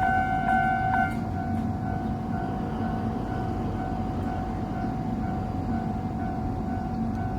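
Japanese railway level-crossing warning bell ringing with an even beat of about two strikes a second. About a second in, the loud ringing drops to a fainter ring, then comes back loud near the end, over a steady low rumble.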